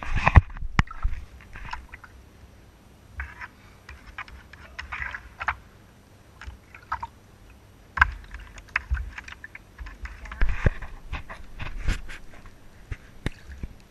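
Shallow bathwater splashing and sloshing in irregular bursts as a small Pomeranian puppy is held and moves about in the tub, with scattered sharp knocks and taps among them.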